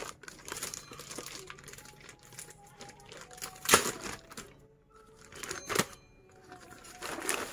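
Clear plastic wrapping crinkling and rustling around an audio mixer as it is lifted and handled, with scattered clicks and knocks; two sharper knocks come a little past the middle and about two seconds later.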